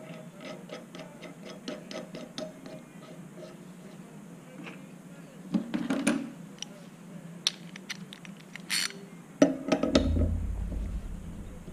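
Hand-tool work on a brass oxygen regulator: a run of light, even metallic ticks at first, a clatter of a tool being picked up, then louder knocks and clatter near the end as a ratchet and socket go onto the regulator's seat nut.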